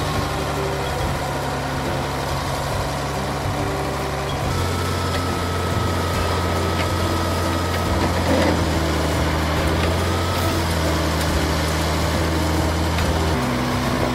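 Truck engine running a tree spade's hydraulics, a steady hum whose pitch steps up about four and a half seconds in and drops back near the end as the blades are lowered into the ground around a tree.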